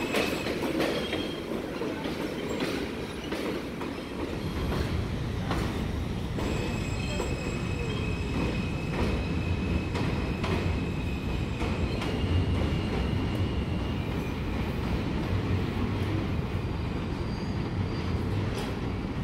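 R160 subway train pulling out of an elevated station and running along the elevated track: a steady rumble, heavier from about four seconds in, with wheel squeal in thin high tones that come and go, and repeated clicks of wheels over the rail joints.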